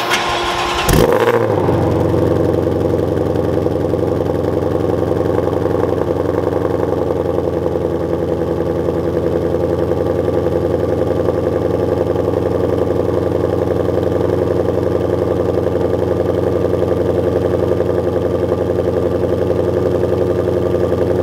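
Ford Mustang Shelby GT500's 5.2-litre supercharged V8 starting about a second in with a loud flare, then settling into a steady idle.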